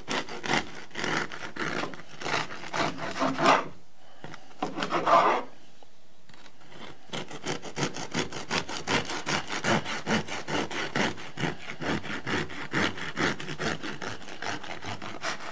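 Bread knife sawing back and forth through the hard crust of a freshly baked sourdough loaf in quick rasping strokes, pausing for a few seconds about four seconds in, then sawing steadily again.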